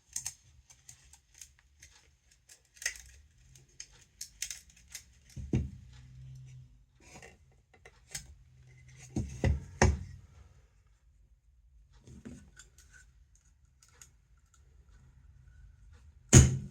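Hand pop-rivet tool and rivet being worked: scattered clicks and metallic clacks as the rivet is fitted and the tool handles are squeezed, with heavier knocks about five and nine seconds in and a sharp loud knock near the end.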